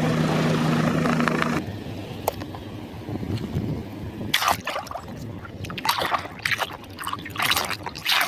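A helicopter sound, a steady low hum, cuts off suddenly about a second and a half in. Then water splashes and sloshes irregularly as a muddy toy is washed by hand, with several sharper splashes.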